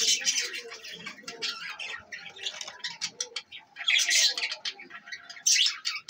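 A flock of budgerigars chirping and chattering: a dense run of short, high chirps, with louder flurries at the start, about four seconds in, and near the end.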